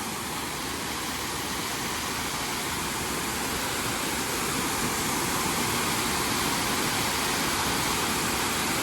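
Steady rushing of a small creek waterfall, growing slightly louder over the seconds.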